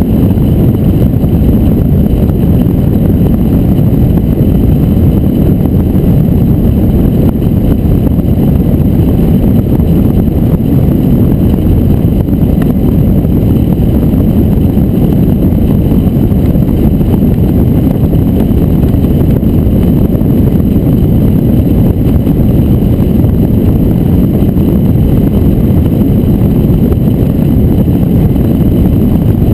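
Steady rushing rumble of wind over a keel-mounted camera on a hang glider flying under aerotow, unbroken throughout.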